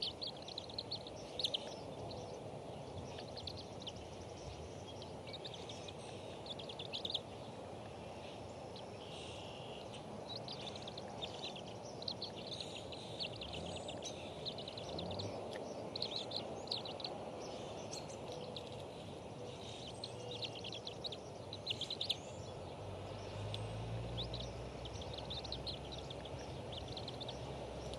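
Frequent short bursts of high, rapid bird chirping over a steady hiss of outdoor background noise; a low hum comes up near the end.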